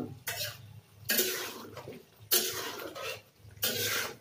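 Spatula stirring chunks of ash gourd in a metal karahi: four swishing, scraping strokes about a second apart as the pieces are turned in their own released water while being stir-fried down.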